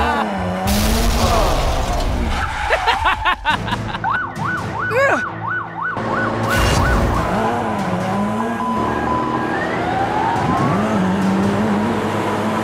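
Siren sound effect in a quick rising-and-falling yelp, about three sweeps a second, between about four and six seconds in, amid other toy-vehicle sound effects with wavering tones and two short bursts of noise.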